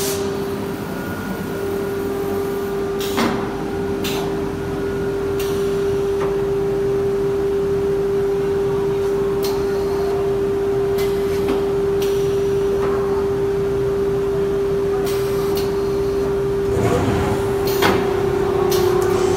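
CNC router with automatic loading and unloading running with a steady, single-pitched whine, with scattered clicks and knocks as a panel is slid onto its table.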